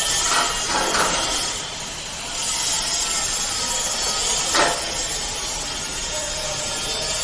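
Steady machine hiss from the running machine, with a few brief metal scrapes and knocks as the steel molds are handled.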